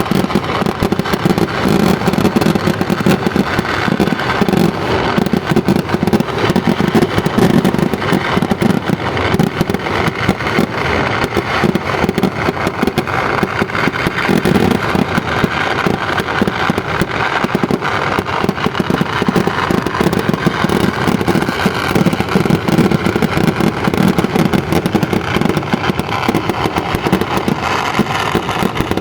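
Fireworks crackling in a fast, unbroken stream of pops with no pauses, like a long string of firecrackers going off.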